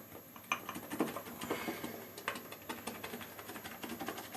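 Shaving brush swirled briskly in a shaving mug of Williams mug soap and hot water, its bristles scratching and clicking irregularly against the ribbed bottom of the mug while the lather builds.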